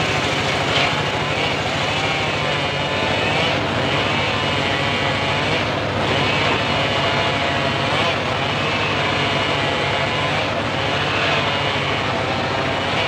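Homemade circular saw rig running steadily while its blade saws through mahogany timber. The pitch wavers, dipping and recovering every second or two over a steady low hum.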